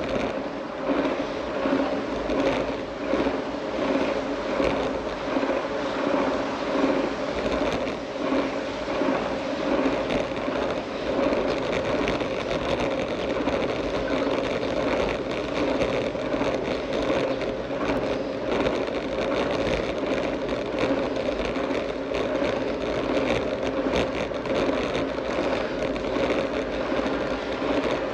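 ElliptiGO elliptical bike in motion: its drivetrain and tyres rolling on a paved path make a steady hum with light rattling.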